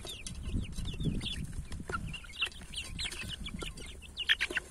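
A group of month-old chicks peeping steadily while they peck at pelleted chick feed, with many short, falling chirps overlapping. There are a few sharp, louder sounds about four seconds in.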